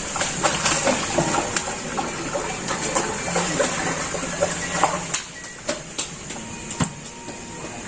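Water splashing and sloshing in irregular bursts, busy for the first five seconds and then thinning out to a few scattered splashes.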